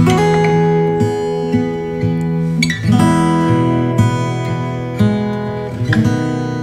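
Background music played on an acoustic guitar, with a new note or chord coming in every half second to a second.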